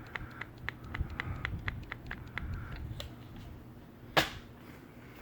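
Low steady hum of ceiling fans running, with a quick even ticking, about four ticks a second, that fades out about halfway through. A single sharper tap about four seconds in.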